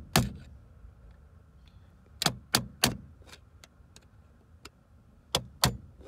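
Hammer striking the end of a flat-head screwdriver set in a groove on the head of a security bolt on a Honda ignition switch clamp, knocking the bolt around to unscrew it. About nine sharp metal clinks, three in quick succession a little after two seconds in and two more near the end.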